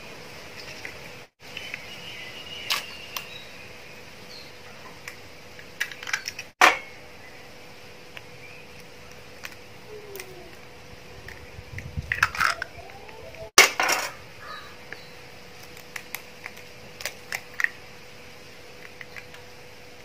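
Raw eggs being cracked by hand: sharp taps and cracks of eggshell, several times, the two loudest about 6 and 14 seconds in, with the smaller crackle of the shell being pulled apart.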